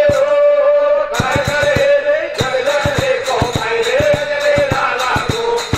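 Instrumental folk music interlude: a sustained melody line stepping between notes over rapid hand-drum strokes, which come in about a second in.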